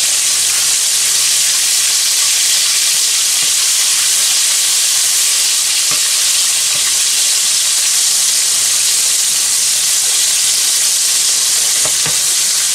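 Flour-dredged grey snapper steaks frying in hot oil in a pan: a steady, loud sizzle, with a few faint clicks.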